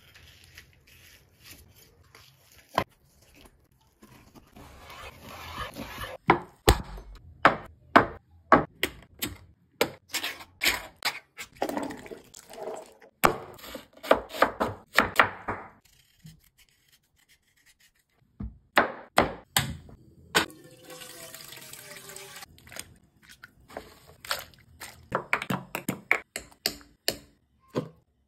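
Chef's knife striking a wooden cutting board over and over as meat and onions are cut, sometimes in quick even runs of chops, with short stretches of softer scraping between them.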